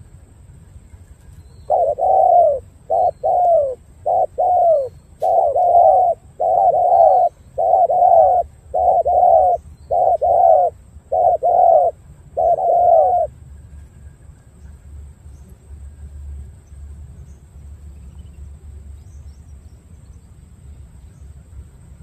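Male spotted dove giving its bowing 'gù' coo: a long run of short, quick coos in close groups, each with a small upward flick at the end. It stops about thirteen seconds in.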